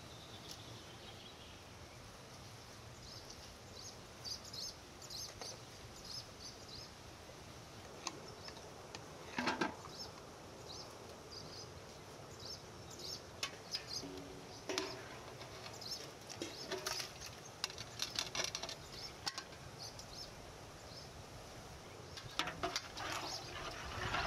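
Small birds chirping in short, quick calls, with occasional clinks and knocks of a metal ladle and metal pots as pomegranate pulp is handled and stirred.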